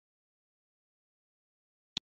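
Silence broken by a single short, sharp click near the end.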